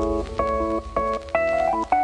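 Background music: a melody of short held notes on an electronic keyboard, changing pitch every fraction of a second.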